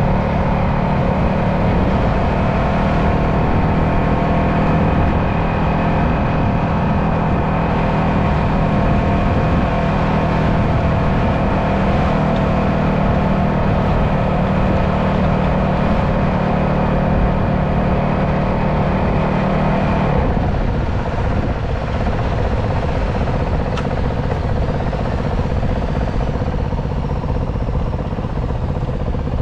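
Honda CRF450RL's single-cylinder four-stroke engine running steadily at cruising speed, with road and wind noise; about two-thirds of the way in the throttle closes and the engine note drops as the bike slows.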